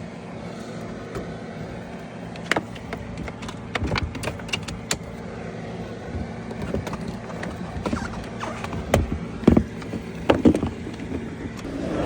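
Scattered clicks and knocks of things being handled in and around a Range Rover, over a steady low hum, with a few heavier thumps near the end.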